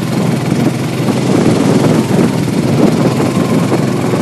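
ATV engine running while the four-wheeler is under way, getting somewhat louder from about a second in.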